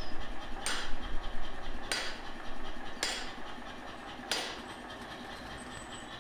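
Hand hammer striking hot steel on an anvil: four ringing blows a little over a second apart, as a blade is forged out.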